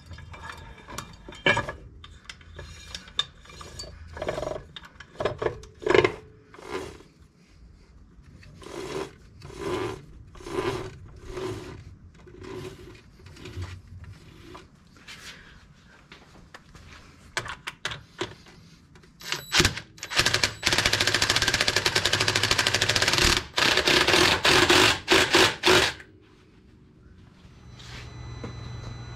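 Tools at work refitting a Polaris RZR Pro XP's secondary clutch on its bolt: a run of short scraping strokes, about one or two a second, then a loud power tool running in several short bursts about twenty seconds in.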